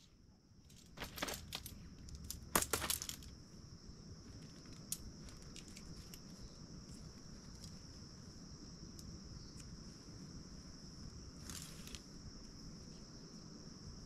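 Jointed metal tent poles clinking and clacking as the folded sections are unbundled and snapped together, with a few sharp clacks in the first three seconds and lighter clicks later. A steady high insect buzz runs underneath.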